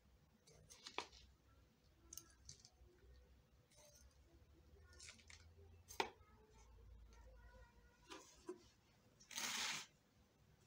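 Faint clinks and scrapes of a metal spoon in a terracotta pot of potting soil as soil is scooped and spread over a small planted pot, with a sharper clack about six seconds in. A short rustling noise near the end is the loudest sound.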